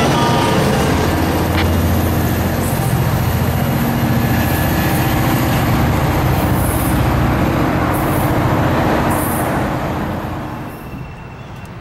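Tri-Rail diesel locomotive passing close by with its engine running in a steady low hum, along with rolling wheel and rail noise and a few short high-pitched squeals; the sound fades away about ten seconds in.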